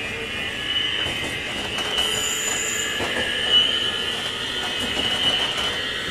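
Running noise heard inside a JR 201 series electric train's motor car, with a steady high whine over the rumble of the wheels and light clicks from the track.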